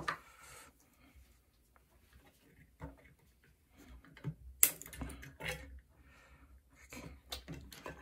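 Scattered clicks and light clatters of small hand tools, pliers and cutters, being put down and worked against a plastic battery pack on a cutting mat. The sharpest click comes a little past halfway, with a cluster of smaller ones near the end.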